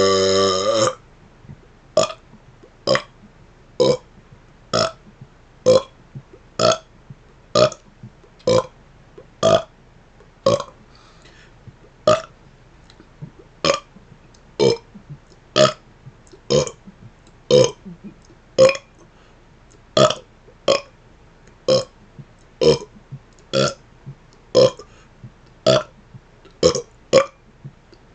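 A man burping: a long pitched belly burp ends within the first second, then comes a steady run of short, quick burps, about one a second. Another long burp starts at the very end.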